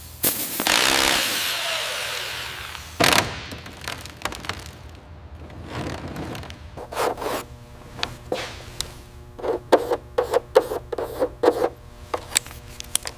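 Workshop tool noises: a long hiss that fades away over a couple of seconds, a sharp knock, then scattered clicks and a run of quick taps with a faint ringing.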